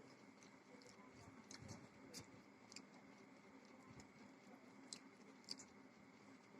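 Quiet close-up eating sounds: soft chewing with a scatter of small sharp clicks and smacks, a few each second or two, as rice and fried fish are eaten.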